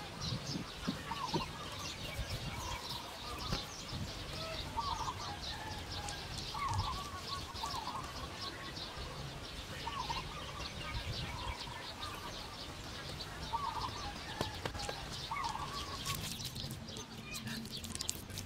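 Birds calling outdoors: a short call repeated every second or two over many quick, high chirps. Near the end come a run of sharp scratchy clicks as a wooden stick works a wet mud wall.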